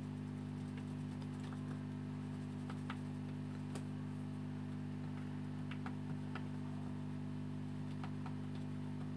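Cotton swab scrubbing flux residue off a laptop motherboard with isopropyl alcohol, heard as scattered faint ticks and clicks over a steady low hum.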